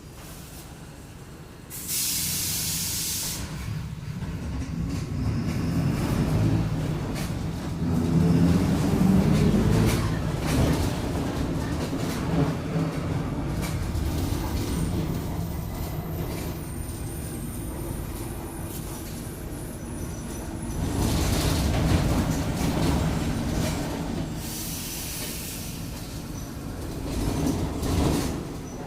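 Mercedes-Benz OF-1722M bus under way: a short blast of compressed-air hiss about two seconds in, then the diesel engine and drivetrain pulling harder and rising in pitch, with a second air hiss near the end. The drivetrain carries a growl that the uploader puts down to the differential.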